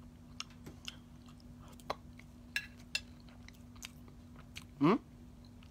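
A person chewing a mouthful of salad, with scattered small crunches. A brief rising vocal hum comes just before the end.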